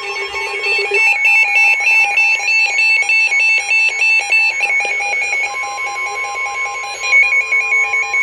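Emergency Alert System alert tones: rapid electronic beeps alternating in pitch over a steady tone, with the beep pattern shifting to a lower pitch about halfway through and a second steady tone joining it. These are the alarm tones that come before a spoken weather warning.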